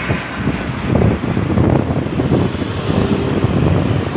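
Gusty wind buffeting a phone's microphone, a loud, unsteady rush that keeps flickering in level.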